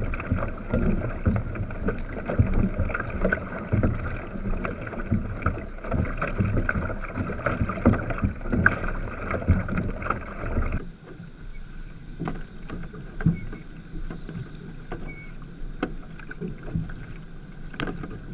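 Sprint kayak being paddled hard, heard from a camera on the bow: water rushing, spray and wind buffet the microphone, and paddle blades strike the water over and over. About eleven seconds in it cuts to a quieter stretch of water lapping with scattered paddle splashes.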